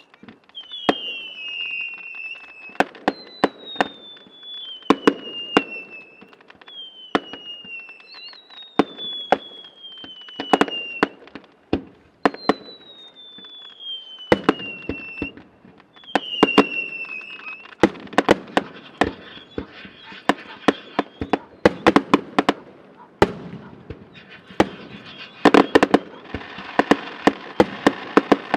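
Fireworks display: a string of whistling shells, each whistle falling in pitch for about a second, between sharp bangs of bursting shells. From about 18 s in the bangs come thick and fast, and near the end a dense crackling sets in.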